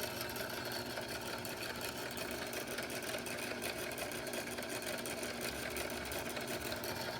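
Cataract bench lathe running steadily, driven by a belt from an electric motor with a spring-loaded tensioner, giving an even mechanical hum.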